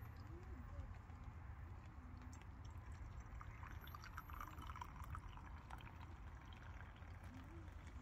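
Hot tea poured from a vacuum flask into a ceramic mug: a thin stream trickling into the cup, heard most clearly in the middle.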